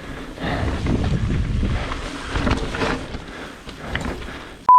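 Wind buffeting an action camera's microphone over the rolling tyres and rattle of a Trek Remedy full-suspension mountain bike riding a trail, in gusty swells. Right at the end a steady high beep begins abruptly.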